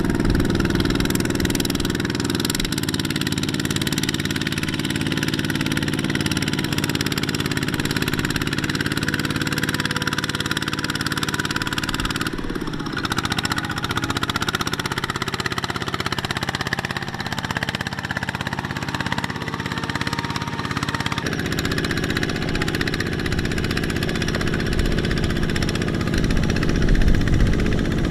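Single-cylinder diesel engine of a two-wheel walking tractor running steadily while it hauls a trailer of rice sacks through deep paddy mud. Its note shifts abruptly a few times.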